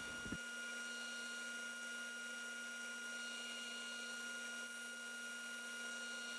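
Faint, steady electrical hum with several constant tones, unchanging throughout and with no knocks or other events.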